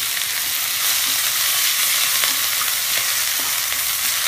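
Washed curry leaves sizzling and crackling in hot oil with fried spices in a small pan just off the flame, stirred with a spoon. The steady hiss is the water on the fresh leaves frying off.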